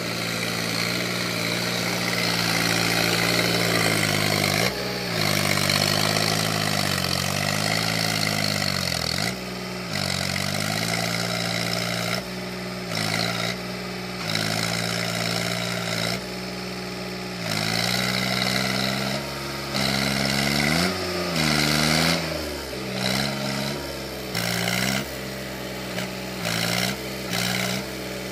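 Sonalika DI-42 RX 4×4 tractor's diesel engine working hard to pull itself through deep paddy mud. Its speed repeatedly sags under the load and climbs back, with a run of short revs near the end.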